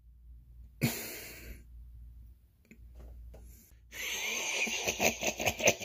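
A person's breathy vocal noises made for hand puppets: a loud, sharp breath about a second in, then from about four seconds a continuous raspy, hissing voice-like sound.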